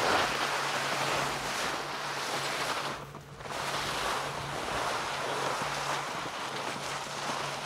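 Wind rushing over the microphone, a steady noise that swells and fades, with a short lull about three seconds in.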